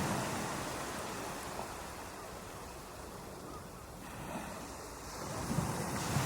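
Ocean surf washing on a beach: one wave's rush dies away, then the next swells in near the end.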